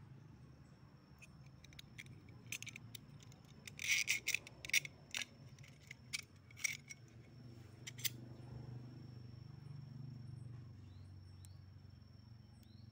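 Light clicks and taps of small metal parts being handled: a steel rod, a steel ruler and an aluminium channel knocking together. The clicks come in a loose run, thickest and loudest about four to five seconds in, and fade out after about eight seconds over a low steady hum.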